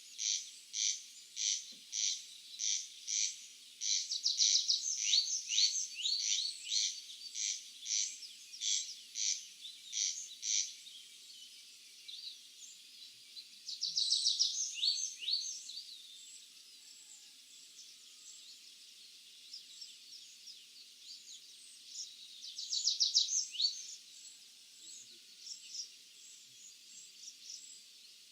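Birds singing in a field. One repeats a short high note steadily, a little under twice a second, for about the first ten seconds, then other birds give scattered calls with a rapid trill about halfway through and again later.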